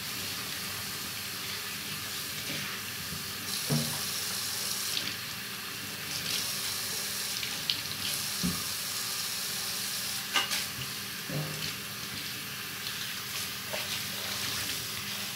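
Tap water running steadily into a stainless steel sink while a sponge is rinsed and squeezed under the stream. A few light knocks sound now and then.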